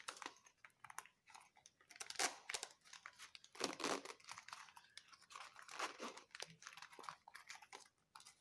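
Plastic and paper packaging of a car first aid kit being handled and pulled open, with irregular crinkling, rustling and tearing, the loudest rips about two and three and a half seconds in.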